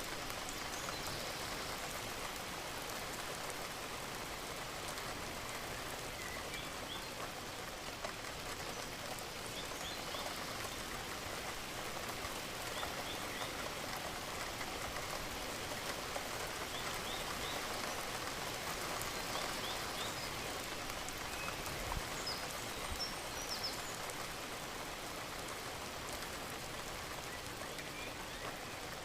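Steady rain falling, an even patter of drops at a constant level, with faint short chirps here and there.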